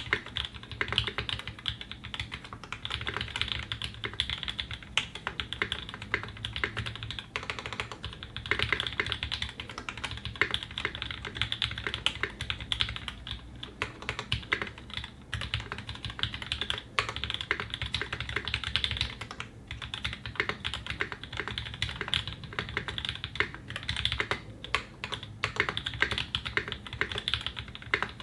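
Continuous fast typing on a custom mechanical keyboard: a Singa 75 in a polycarbonate case with a brass plate, lubed Tangerine linear switches, lubed stabilizers and GMK keycaps, giving a dense, steady stream of key clacks.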